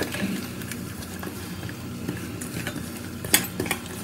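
Fingers rubbing and mixing a wet spice paste in a stainless steel bowl: scattered soft scrapes and clicks against the metal, with one sharper knock a little after three seconds in, over a steady low hum.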